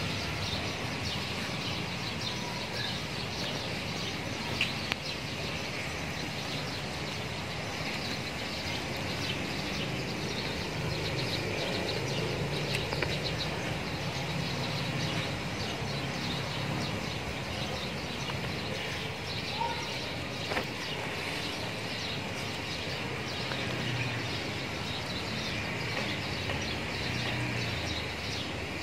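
Steady outdoor background noise with a low rumble like distant traffic and a few faint bird chirps now and then.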